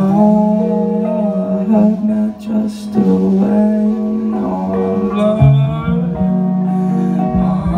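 Live rock band playing: electric guitar and bass over a drum kit, through a club PA.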